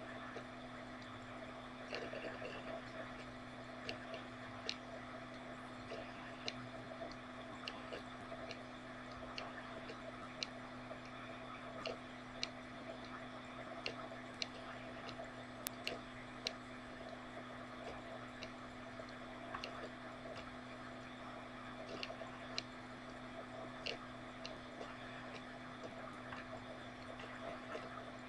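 Quiet room tone: a steady low hum with faint scattered clicks every second or so.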